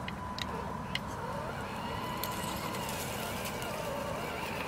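Electric motor and gearbox of a 1/10-scale MST CMX RC crawler whining steadily as it creeps along, with a few light clicks.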